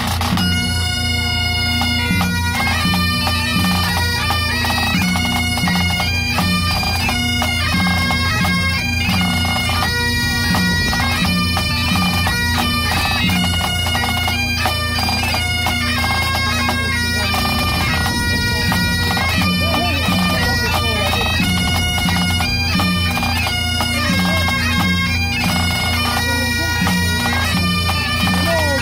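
Great Highland bagpipes, three pipers playing a tune in unison over the steady hum of their drones, with quick note changes and grace notes in the melody.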